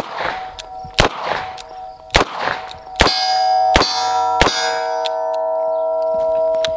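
Six shots from a .38 Special snub-nose revolver (Rock Island Armory Model 206), fired about a second apart, emptying the cylinder. Hit steel targets ring with clear, sustained tones. The ringing builds over the later shots and keeps sounding well after the last one.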